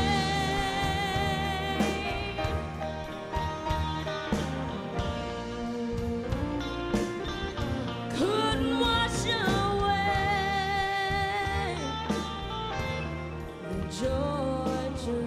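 Live country music: a band playing, with long, wavering held melody notes over a steady low accompaniment.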